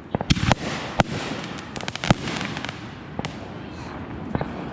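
Consumer aerial firework cake bursting overhead: an irregular string of sharp bangs over a crackling hiss, the loudest bangs in the first half.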